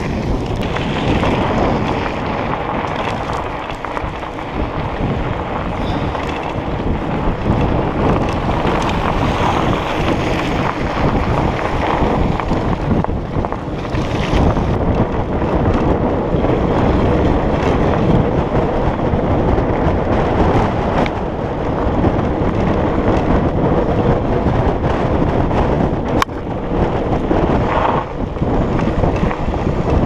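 Wind noise on a bike-mounted camera microphone over the rumble and rattle of a mountain bike riding fast down a loose gravel and dirt track.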